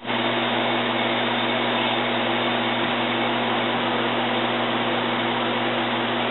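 Large industrial wall fan running steadily: an even rushing of air over a low, steady hum.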